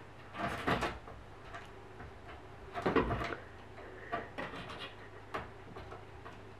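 Wooden glass-panelled door knocking and rattling under a cat's shifting weight as it clambers on the door's top edge: a burst of knocks about half a second in, a heavier thump about three seconds in, then a run of light taps and scratches as it climbs down the frame.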